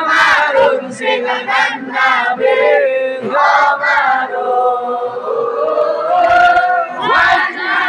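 A large crowd singing Islamic sholawat together in long held lines, with a few low thumps.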